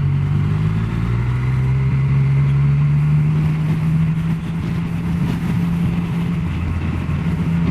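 Yamaha Tracer motorcycle engine running at a steady cruise while riding, with wind rush on the microphone.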